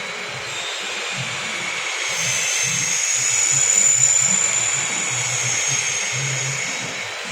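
CO2 laser engraver-cutter running a cut in 10 mm acrylic: a steady airy hiss from its air assist and fans, with a high whine that rises about two seconds in and eases near the end.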